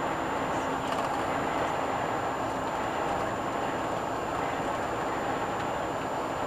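Steady road and tyre noise with engine drone from a vehicle cruising at about 80 km/h, heard from inside the cab, with a steady low hum and a faint steady high whine.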